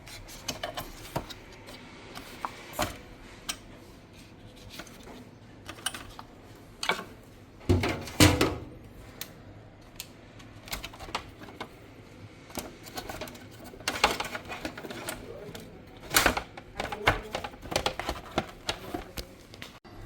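Irregular clicks and knocks of fridge parts being handled while a replacement evaporator fan motor is fitted, with a busier, louder clatter about eight seconds in and again near the end.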